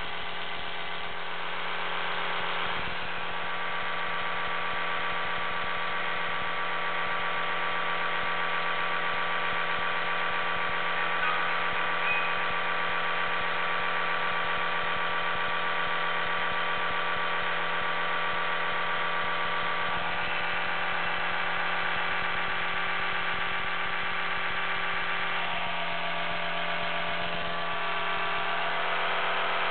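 Oral-B Genius 8000 electric toothbrush running in the air, out of the mouth: a steady motor hum with a buzzy edge, its tone shifting slightly twice as the brush is moved about.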